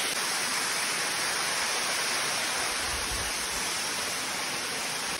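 Steady rush of falling water from a mountain waterfall or torrent, with a brief low rumble about three seconds in.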